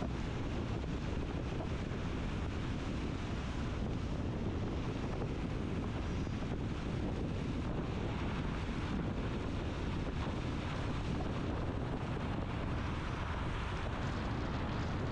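Heavy rain falling as a steady hiss, with wind rumbling on the microphone.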